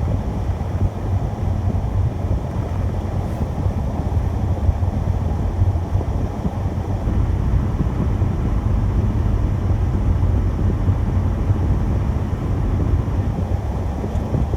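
A car driving steadily: a continuous low rumble of engine and road noise with no breaks or changes.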